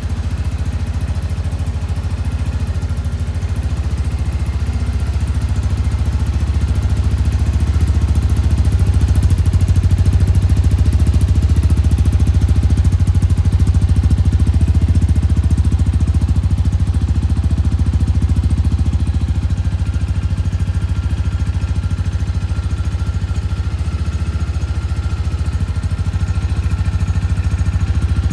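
Shelby Renz 200 motorcycle engine running steadily at a low, even pace. It gets a little louder about a third of the way in, eases back, and picks up again near the end.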